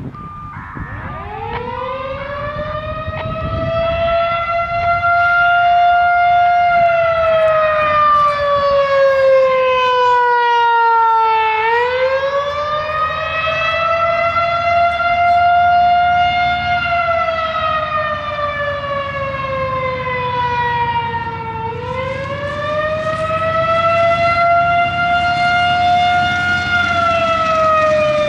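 Federal Signal 2001-130 electromechanical outdoor warning siren winding up from rest about half a second in. Its rotating horn then sounds one pitched tone that slowly glides up and down, about ten seconds per cycle, during a siren test.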